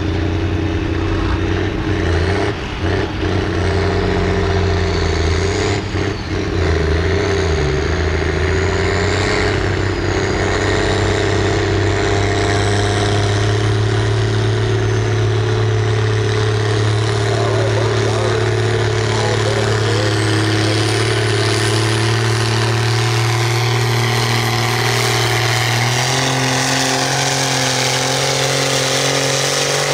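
Case farm stock tractor's diesel engine running flat out under heavy load while pulling a weight-transfer sled, its note held steady and stepping down a little near the end as the load builds.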